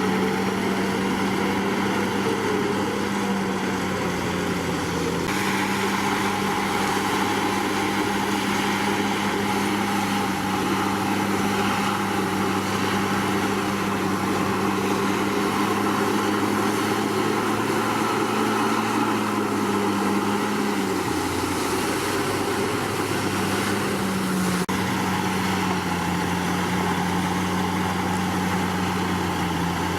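Komatsu D61PX bulldozer's diesel engine running steadily at work, its note sagging briefly a few times as it takes load while pushing soil. The sound shifts abruptly twice.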